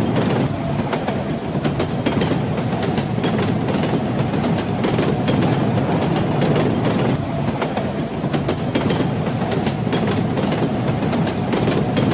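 Train wheels running on the rails, a steady rumble with a continual scatter of clicks and clacks from the track.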